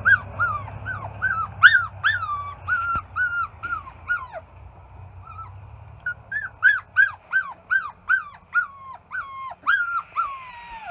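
A puppy yipping over and over, about three short high cries a second, each sliding down in pitch, in two runs with a pause of about two seconds a little before the middle.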